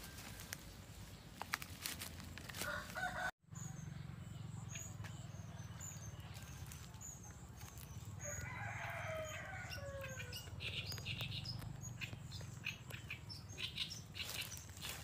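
A rooster crowing about eight seconds in, its call sliding down in pitch at the end. Before it, palm fronds and brush rustle and snap as they are pushed aside, and there is a brief dropout about three seconds in. Scattered rustles and clicks follow the crow.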